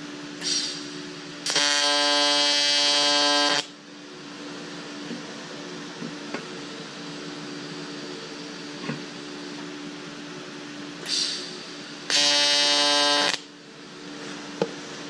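AC TIG arc on aluminium buzzing in two bursts, about two seconds long and then just over a second, each one just after a short hiss. A steady machine hum runs underneath. The welder suspects a cracked tungsten is behind the trouble with the arc.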